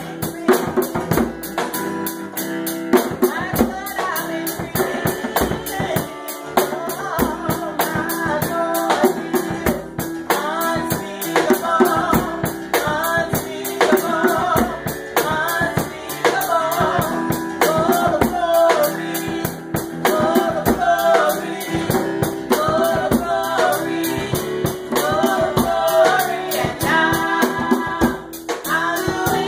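Live gospel music from a small band: keyboard chords, a drum kit and a hand-played drum keep a steady, busy beat, with voices singing phrases over it.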